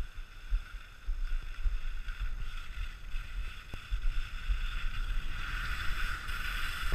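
Steady hiss of sliding downhill on groomed snow, growing louder near the end, with wind buffeting the body-worn action camera's microphone in irregular low rumbles.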